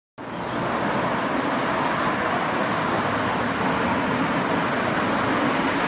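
Steady vehicle running noise, an even rushing sound without distinct tones.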